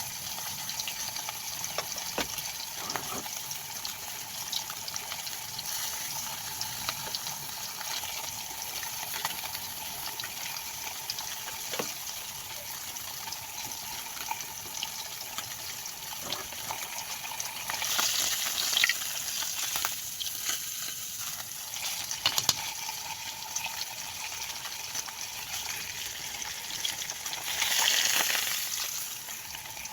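Pompano frying in hot oil: a steady sizzle with scattered crackles. It swells louder twice, about two-thirds of the way through and again near the end.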